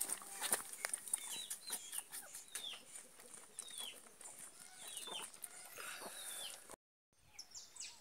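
Chickens clucking and calling, a string of short falling calls over many sharp clicks. The sound cuts out briefly near the end.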